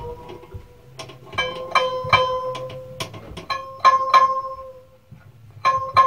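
Tensioned pinned-end scroll saw blade plucked about ten times to test its tension, each pluck ringing with a short twang at a steady pitch like a guitar string, with a pause about five seconds in.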